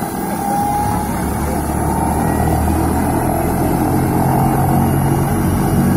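Helicopter running on the ground: a steady low rotor beat under an engine whine, growing a little louder in the first second.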